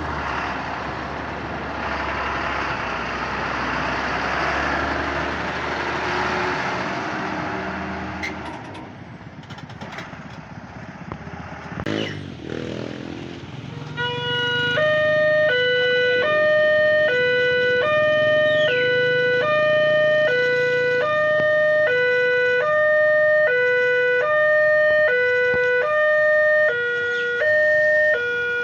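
Railway level-crossing warning siren: an electronic two-tone siren that starts about fourteen seconds in and alternates steadily between a higher and a lower pitch. Before it, passing traffic noise fades out about eight seconds in, and there is a sharp click near twelve seconds.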